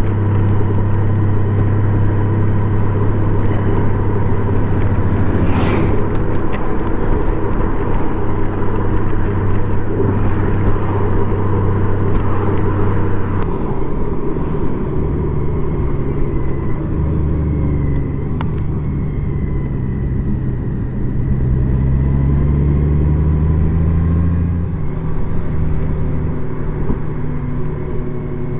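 Honda Gold Wing motorcycle riding along a road, its engine and road noise steady with a constant low hum for about the first half. After that the engine note shifts up and down as the speed changes.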